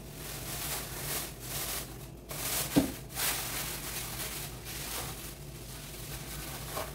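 Thin plastic bag rustling and crinkling as it is stretched over a stainless steel bowl and tucked around its rim, in uneven swells, with one sharp tap a little under three seconds in.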